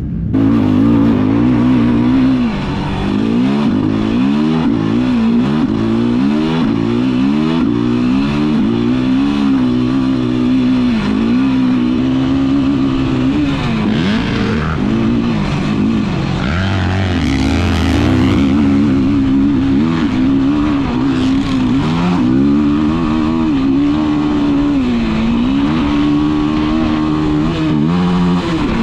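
Yamaha YFZ450R sport quad's single-cylinder four-stroke engine being ridden hard, revving up and dropping back again and again as the throttle is worked on and off. It gets louder right at the start as the quad pulls away.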